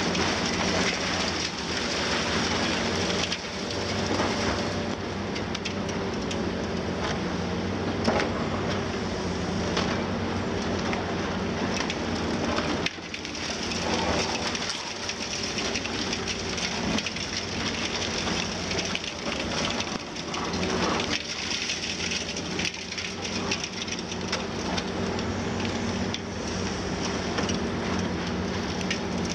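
Demolition excavators breaking up a reinforced-concrete building: a continuous crackle and clatter of crushed concrete and falling rubble over the steady drone of the Liebherr 954 long-front excavator's six-cylinder diesel engine, with one louder crunch about eight seconds in.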